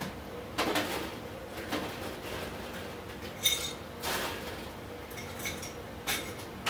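Ice cubes being scooped and dropped into a drinking cup: a series of separate clinks and rattles, one with a brief ringing tone about halfway through.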